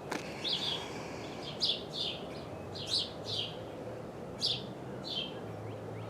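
Small bird chirping, about seven short chirps over six seconds, over a steady low background rumble.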